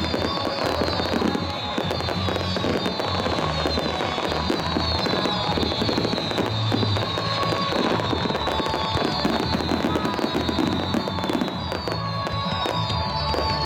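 Fireworks display: a continuous dense crackling and popping of fireworks, with no single big bang standing out, and music playing underneath.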